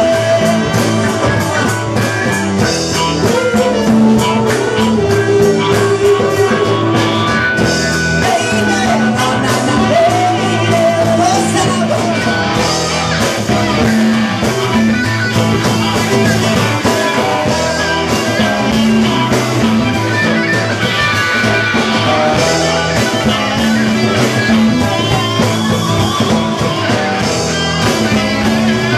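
Live band playing a rock song with acoustic and electric guitars over a steady beat, with a male voice singing.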